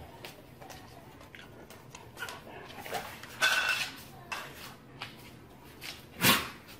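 A German shepherd gives a short high whine about three and a half seconds in and one loud short bark near the end, over scattered light clicks and knocks on a wooden floor.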